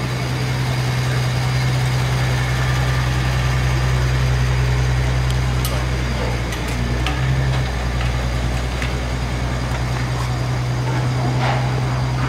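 A vehicle engine idling with a steady low hum and no revving. A few faint clicks come in the middle.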